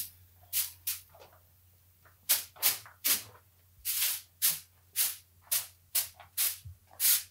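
A short hand broom swishing in quick strokes across a dusty concrete floor, about two strokes a second with a brief pause near the start.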